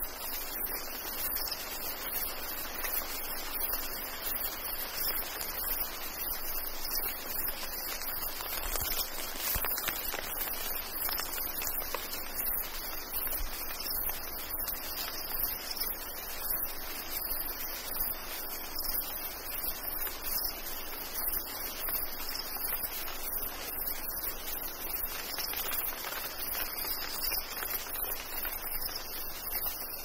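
Rainforest insect chorus of crickets and cicadas, a steady high-pitched shrilling with fast pulsing, over the soft hiss of light rain and dripping.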